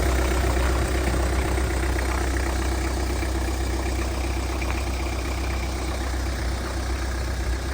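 Turbo-diesel engine of a 1991 Toyota Land Cruiser Prado idling steadily while still cold, shortly after a cold start.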